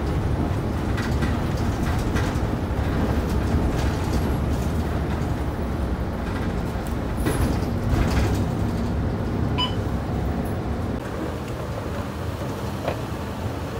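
Steady low engine and road rumble inside a city bus as it pulls in to a stop, with a few faint clicks and a short beep about two-thirds of the way through. The rumble eases a little near the end.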